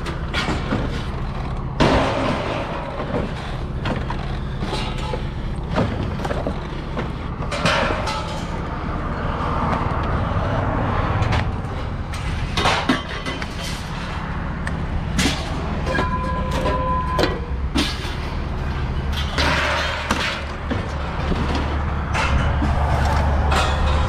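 Scrap metal clanking and banging in irregular knocks as pieces are handled and dropped onto a pile, with a brief metallic ring about two-thirds of the way in, over a vehicle engine idling steadily.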